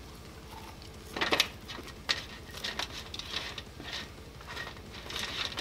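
Eating sounds: chewing, with scattered light clicks and taps as waffle fries are picked off a metal sheet pan, a cluster of them about a second in.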